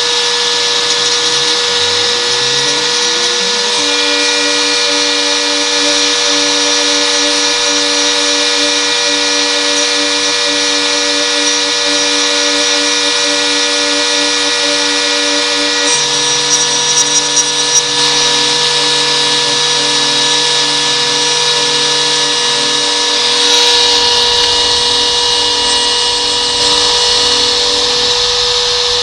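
Homemade CNC milling machine running. Its spindle motor gives a steady high whine while the axis stepper motors hum at tones that glide and step as the machine moves. Brief crackles come from the cutter about halfway through, and the sound turns rougher and noisier near the end.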